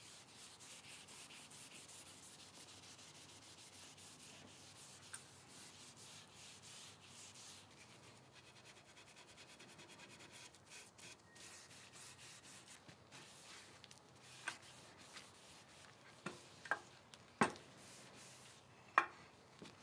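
Faint brushing and rubbing of a brush and rag working chemical stripper over lacquered wooden table legs, with a few sharp clicks and taps in the last several seconds.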